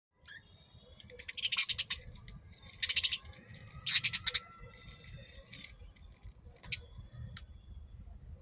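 Budgerigars chirping and chattering, with three loud harsh calls about one and a half, three and four seconds in, and softer chirps and clicks between them.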